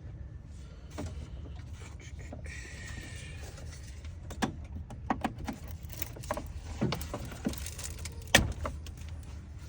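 Plastic wire-loom clips being pried and popped off a car's radiator fan shroud: a string of sharp clicks and knocks, with a brief rustle of the loom before them. A steady low hum runs underneath.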